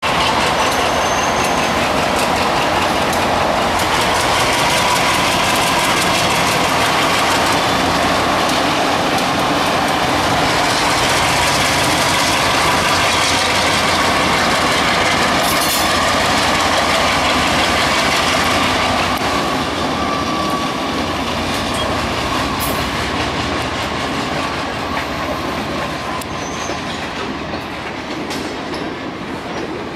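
Freight train passing close by: diesel locomotives working, then covered hopper cars rolling past with the clatter of wheels over the rails. Loud and steady for most of the time, growing gradually quieter over the last ten seconds as the locomotives move away and the cars roll by.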